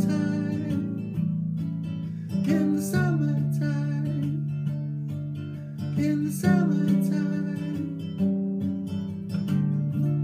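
Nylon-string classical guitar being strummed: a strong strum every few seconds with lighter strokes between, each chord left to ring.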